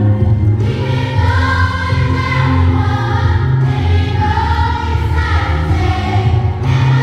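Eighth-grade student choir singing together in held, flowing lines, with a deep low part sounding steadily beneath the voices.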